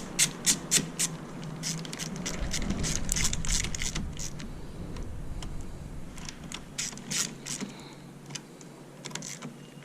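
Ratchet wrench clicking in quick, even strokes as the nut holding a new main fuse in a Mazda 6's fuse box is tightened, followed by scraping and a few scattered clicks of the tool on the terminal.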